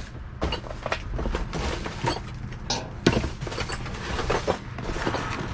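Rummaging through discarded items in a dumpster: scattered knocks, clatter and rustling as things are handled and moved, with a sharp knock about three seconds in, over a low steady hum.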